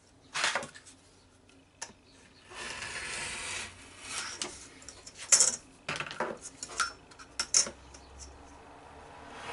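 Rotary cutter rolled along a steel ruler, slicing through a sheet of leather on a cutting mat: a dry rasp of the blade in the leather. Around it come sharp clinks and knocks as the metal ruler and cutter are set down and moved.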